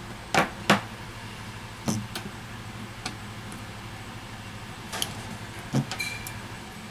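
Tweezers and a smartphone's metal frame being handled on a silicone repair mat during disassembly: several sharp clicks and taps, two close together near the start, over a low steady hum.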